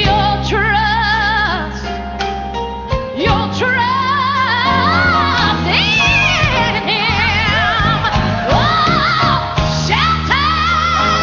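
Gospel song: a singer with strong vibrato and sliding pitches over sustained bass and instrumental accompaniment.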